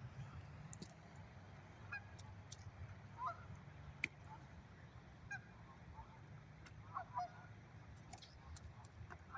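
Faint, scattered sharp ticks and snaps from the ice of a freezing pond cracking as it expands, mixed with short honking calls that come singly and in a pair near the end, over a low steady rumble.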